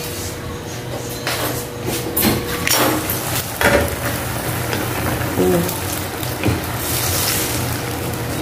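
Glass pot lid lifted off a frying pan of simmering water spinach, with a few knocks and clinks of lid and pan in the first few seconds. Near the end a wooden spatula stirs the greens in the bubbling broth.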